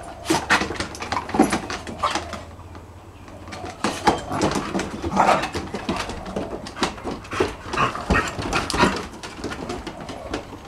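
A Weimaraner and smaller Staffy-cross and Kelpie-cross dogs play-fighting on a wooden deck: scuffling and paws scrabbling on the boards, with short dog whines. The scuffle pauses briefly about three seconds in.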